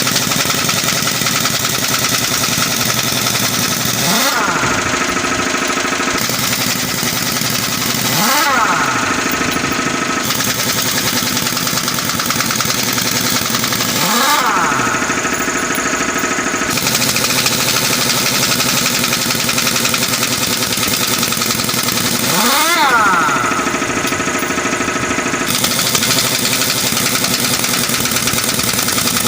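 An engine running steadily, revved up and back down four times.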